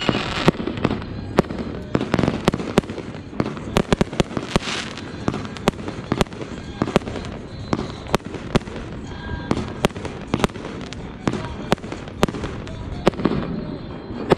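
Aerial fireworks bursting in quick succession: a steady string of sharp bangs, about one or two a second, over a continuous crackling hiss.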